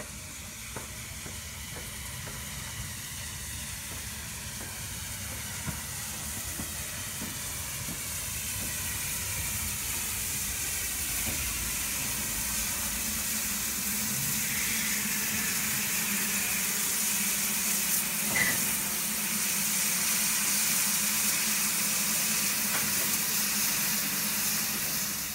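BR Standard Class 9F 2-10-0 steam locomotive 92203 Black Prince coming slowly closer and passing at walking pace, a steady hiss of steam growing louder as it nears.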